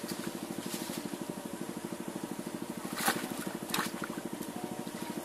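A small engine running steadily with an even putter of about nine beats a second. Two short sharp knocks or splashes cut in about three seconds in and again a moment later.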